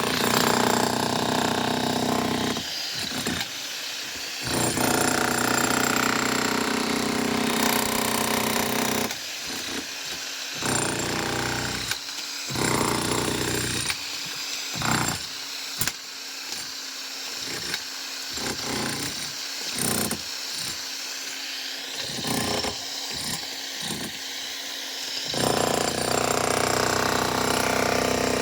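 Power tool cutting a concrete slab. Its motor runs loud in long stretches of several seconds and drops to a quieter steady hum with scattered clicks in between.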